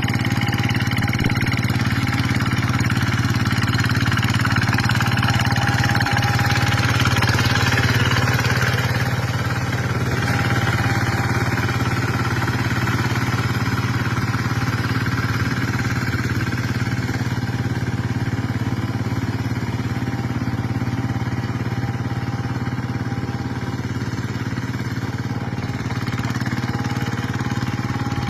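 Paddy-field tractor engine running steadily under load while harrowing wet rice-paddy soil, a little louder for a few seconds near the first third.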